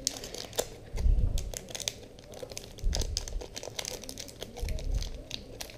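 Foil Pokémon booster pack wrapper crinkling and crackling as it is handled and torn open, with three low thumps of handling about one, three and nearly five seconds in.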